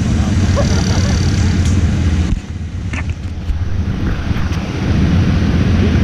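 ATV (quad bike) engine running under way, a steady low drone. A little over two seconds in it drops back for about two seconds, then picks up again.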